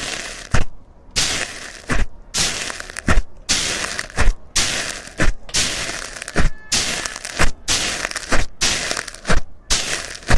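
Slime being pressed and squeezed by hand: continuous crackling with a sharp pop about once a second, broken by brief silences.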